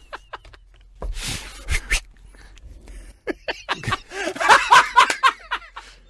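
People laughing: a breathy burst about a second in, then a louder bout of laughter from about four seconds in.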